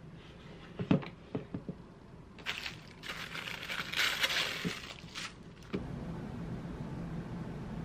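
Handling a new handbag on a table: a few sharp knocks about a second in, then tissue paper crinkling for about three seconds as the wrapped strap is unwrapped. A steady low hum follows near the end.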